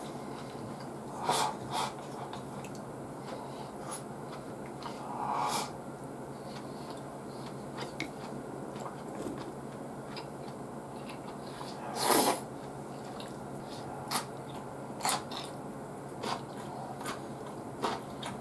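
Close-up eating sounds of a man chewing a meal of grilled hokke, with short mouth smacks and chopstick clicks scattered irregularly and one louder, longer burst about two-thirds of the way through, over a quiet room hum.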